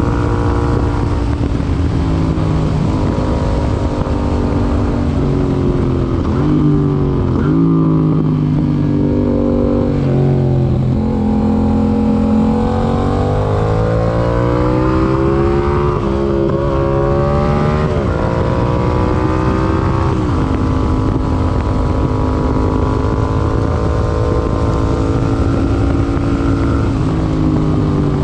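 Yamaha MT-07's 689 cc parallel-twin engine running through an IXIL IXRACE MK2 aftermarket exhaust while riding. The revs rise and fall repeatedly through gear changes and throttle on and off, with a long climb in pitch around the middle.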